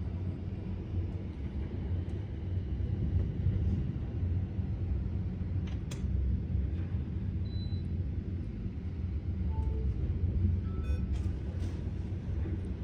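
Storm wind buffeting the microphone as a low, steady rumble, with one sharp click about six seconds in.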